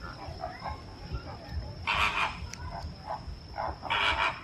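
A flock of flamingos calling: loud honking calls about every two seconds, with shorter, softer calls between them.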